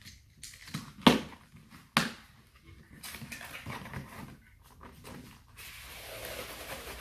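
Cardboard box and packaging being handled and opened: a few sharp knocks in the first two seconds, the loudest about a second in, then rustling of the wrapping.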